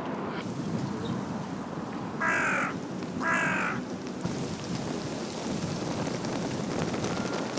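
A crow cawing twice, about a second apart, over a steady background hum of outdoor ambience.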